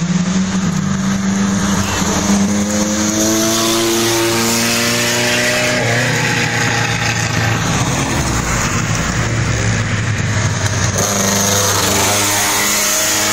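Cars taking a tight hairpin one after another during a hill-climb, their engines revving up as each accelerates out of the bend, with the engine note climbing in pitch. A car passes close near the end.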